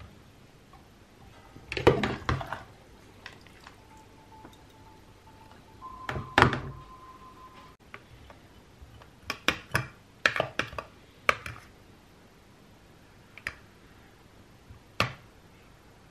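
Kitchen clatter as food is handled with metal forks over a plastic bowl and a glass baking dish: two louder knocks with clatter in the first half, then a run of light fork clicks and taps, and two more single clicks near the end.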